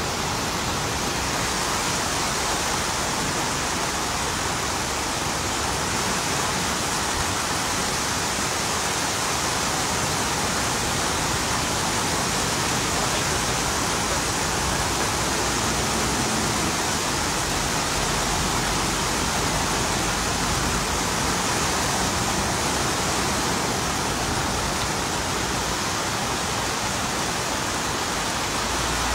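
Muddy flash-flood water pouring in a wide cascade over the edge of a road embankment, a steady rush of falling water. It is a wadi in spate after thunderstorm rain.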